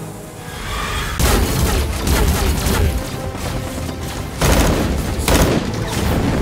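Battle-scene film soundtrack: explosions and gunfire over dramatic music, with sudden heavy hits about a second in, at about four and a half seconds, and again a second later.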